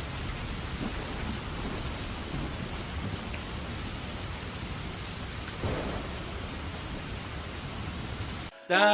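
Steady rain falling, with a brief low rumble a little past halfway. The rain cuts off abruptly near the end as music comes in.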